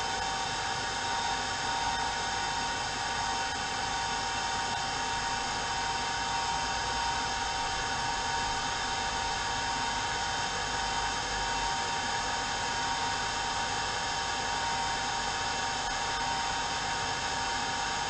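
Handheld hair dryer running steadily, blowing warm air into a phone's USB-C charging port to dry out moisture, a constant rush of air with a steady whine.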